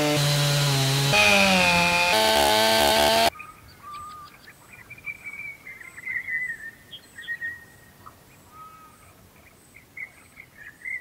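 STIHL chainsaw cutting into a large pine log, its engine pitch shifting under load, cut off suddenly about three seconds in. Then birds chirping and whistling.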